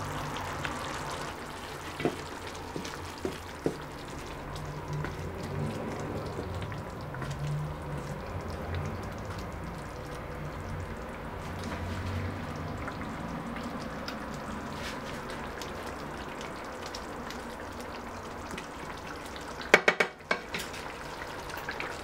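Chicken livers in tomato sauce simmering and sizzling in a frying pan while a wooden spatula stirs them, with a few light clicks against the pan. A cluster of sharp knocks on the pan comes a couple of seconds before the end.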